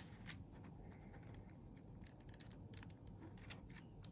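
Faint, scattered small plastic clicks and taps as N-gauge model passenger cars are handled and set on the track.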